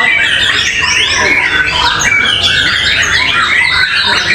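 Caged white-rumped shamas (murai batu) singing over one another in a dense, continuous tangle of fast whistles, trills and mimicked calls (isian).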